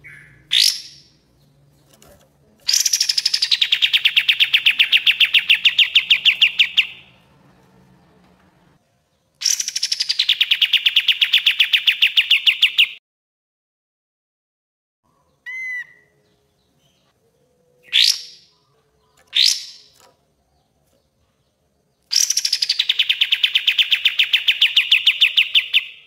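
Kapas tembak bulbul singing its rapid 'tembak' song: three long, fast stuttering trills of a few seconds each, each starting with a falling sweep, with short sharp whistled notes between them.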